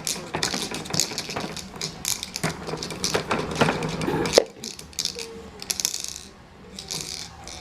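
Small hard objects clattering and tapping on a tabletop in a run of irregular clicks and knocks, with one sharper, louder knock about four seconds in.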